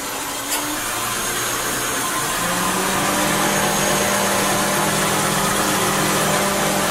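Subaru Baja's flat-four engine idling with the air conditioning running, during an R134a recharge. Steady machine hiss, a light click about half a second in, and a steady low hum that joins about two and a half seconds in.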